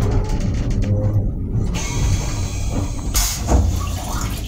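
Stainless-steel toilet in an M7 railcar restroom flushing: bursts of rushing air and water, the loudest about three and a half seconds in, over the steady low rumble of the railcar.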